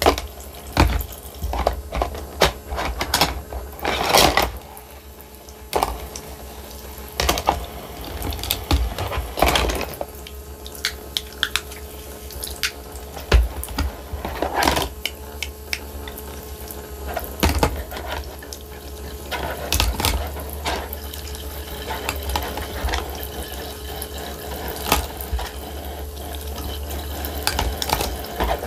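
Water running from a toy kitchen sink's faucet while small plastic toy dishes are rinsed, with frequent light clacks and knocks of plastic on plastic.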